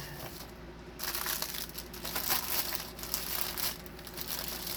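Crinkling and rustling as diamond painting kit packaging is handled and packed back into its box, starting about a second in.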